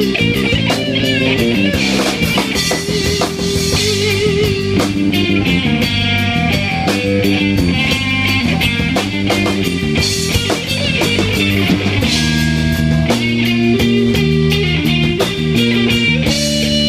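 Live rock band playing an instrumental passage: electric guitars over a drum kit, the lead guitar holding notes that waver.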